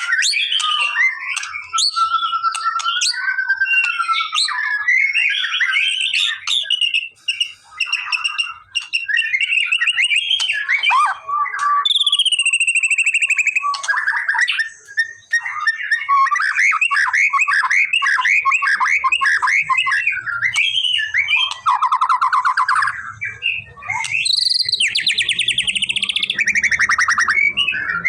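White-rumped shama (murai batu) singing a continuous, varied song of clear whistles, trills and fast repeated notes. Near the end come harsher, buzzier phrases. This is the kind of song played to a caged shama to get it to answer.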